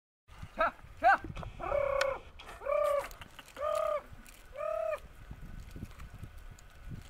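Goats bleating: about six calls roughly a second apart, the first two short, the last four longer and steady in pitch.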